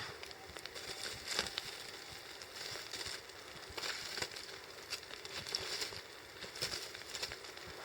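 Wood campfire crackling, with irregular pops and snaps over a faint steady hiss.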